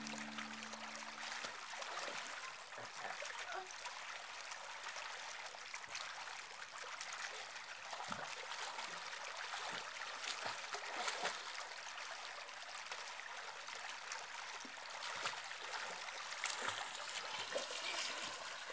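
Pool water splashing under a swimmer's arm strokes: a faint steady wash of water with scattered small splashes, a few louder near the end.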